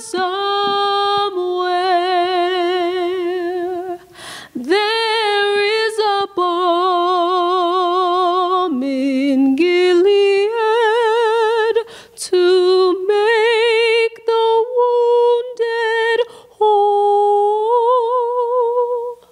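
Woman singing solo and unaccompanied into a handheld microphone: slow, long held notes with wide vibrato, with a few brief breaks for breath between phrases.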